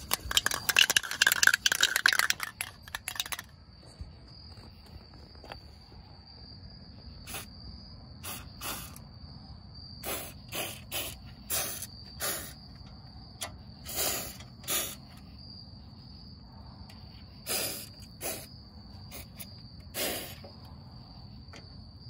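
Short puffs of a Fluid Film aerosol can sprayed through a thin extension wand, about a dozen brief hisses a second or so apart, after about three seconds of loud rapid rattling at the start. Crickets chirp steadily in the background.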